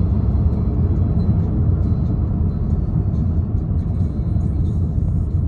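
Steady low rumble of a 2015 Chevy Cruze being driven, with road and engine noise heard inside the cabin.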